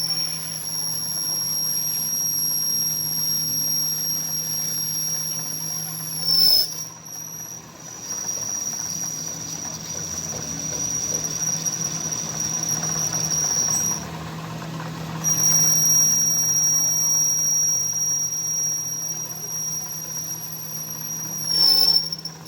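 A steady, high-pitched mechanical squeal over a low, steady machine hum. The squeal breaks off twice, dipping in pitch as it stops, then starts again.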